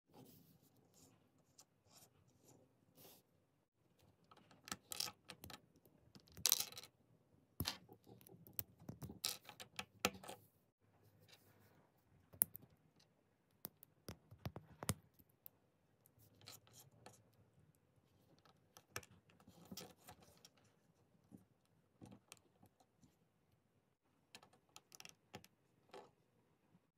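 LEGO minifigure pieces being handled and snapped on and off: small hard-plastic clicks, taps and rattles at irregular intervals, with short pauses between.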